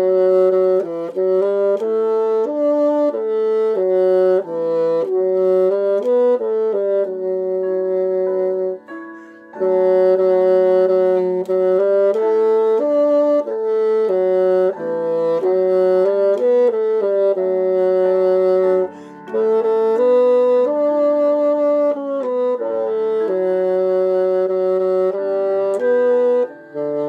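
Bassoon playing a slow melody in long held notes over other sustained notes sounding beneath it, with short breaks between phrases.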